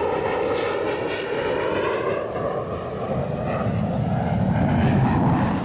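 Aircraft engine during a pass over the show line, a pitched drone whose tone slides slowly lower, growing louder and heavier toward the end.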